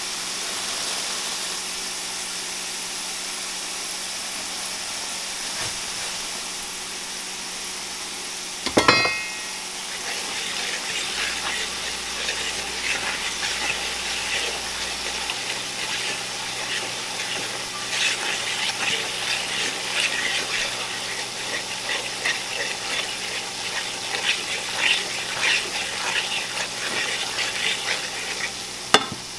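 Onions and flour sizzling in hot frying grease in a skillet. About nine seconds in there is one sharp knock, then a fork scrapes and taps against the pan over the sizzle as the flour is stirred into the grease to brown for gravy.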